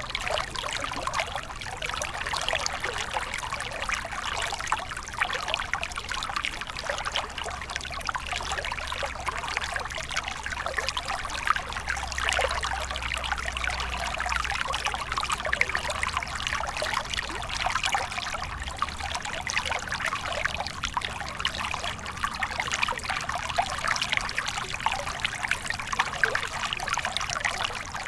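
Stream water running over rocks in a moderate current: a steady trickling rush with small splashes.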